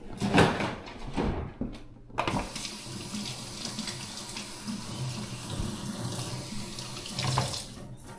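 A kitchen tap runs into the sink in a steady rush of water for dish cleanup. It starts about two seconds in, after a few knocks, and stops near the end.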